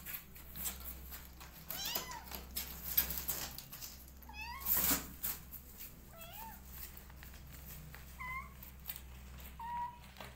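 Kittens mewing: about five short, high-pitched meows a second or two apart, with scattered rustling and one brief sharp noise about halfway through.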